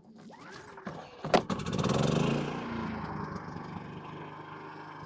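Firman W3650i inverter generator's 193 cc engine being pull-started: it catches about a second and a half in, runs loudest for a moment, then settles into a steady, quieter run.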